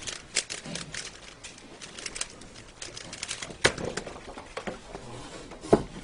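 Rubik's cube being turned rapidly by hand: a quick run of small plastic clicks and rattles, with a louder clack about three and a half seconds in. A sharp knock on the table near the end as the solve finishes.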